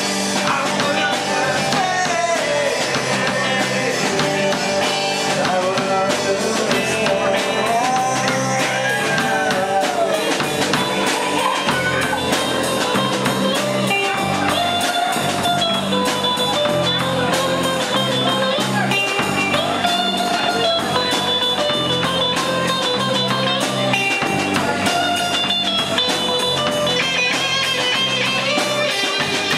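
Live rock band playing: a male singer over guitars and a drum kit, with a steady beat.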